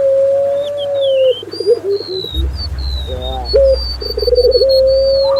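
Doves cooing: a stutter of short notes, then a long, steady held coo, twice, about three seconds apart. Thin, high whistled phrases from a small songbird run above the coos.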